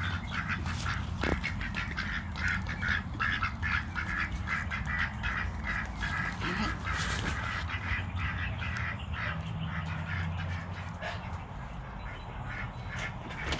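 Domestic ducks quacking in rapid runs of short, repeated quacks, thinning out near the end.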